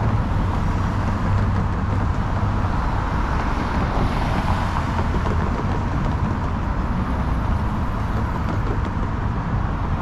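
City street traffic: a steady low rumble of vehicles, with a hiss that swells briefly about four seconds in.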